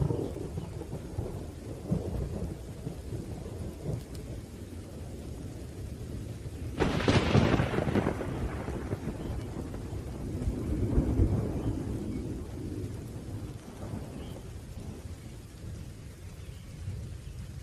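Thunderstorm: rain falling with continuous rolling thunder. A loud thunderclap breaks about seven seconds in and rumbles away over several seconds, with another swell of thunder a few seconds later.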